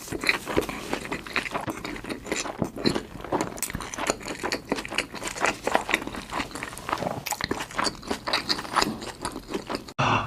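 Close-miked eating: chewing and biting food, with a dense, irregular run of sharp wet mouth clicks and crunches. It breaks off abruptly near the end.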